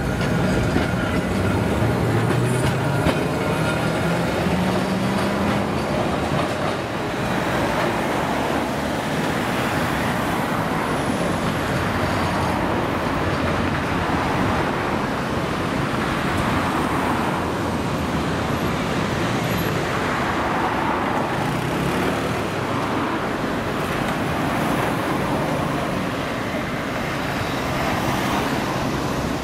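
Road traffic noise with a 1920s-design Peter Witt tram running on street track; in the first few seconds a low hum rises in pitch as the tram pulls away, after which the steady traffic noise carries on.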